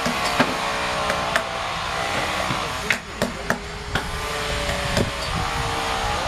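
Wooden mallet striking a wood-carving chisel as it cuts into a large wooden sculpture: sharp irregular knocks, sometimes two or three within a second. A steady machine hum runs underneath.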